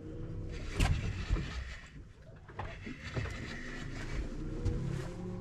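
Electric bow-mounted trolling motor running, its whine rising and falling twice as it works to hold the boat's position, with a few sharp knocks, the loudest about a second in.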